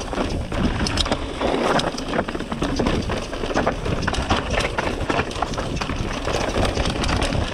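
Mountain bike riding down a rocky trail: tyres rolling over dirt and sharp stones, with frequent knocks and rattles from the bike, and wind on the microphone.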